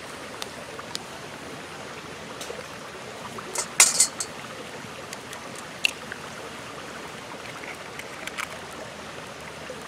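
An egg cracked against the rim of a stainless steel mixing bowl: a cluster of sharp taps and cracks a little under four seconds in, the loudest sound, with a few lighter clicks of shell later. Underneath runs the steady rush of a creek.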